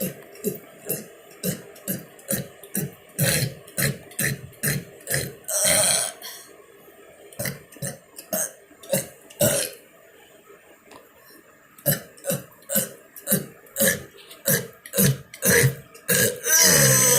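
A man burping over and over in quick succession, short burps about two or three a second, with a couple of brief pauses and two longer, drawn-out burps, one about a third of the way in and one at the end.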